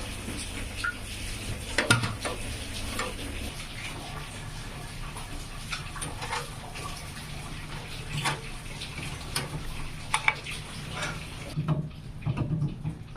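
Scattered light clicks and knocks over a steady hiss and low hum; the hiss cuts off about a second and a half before the end.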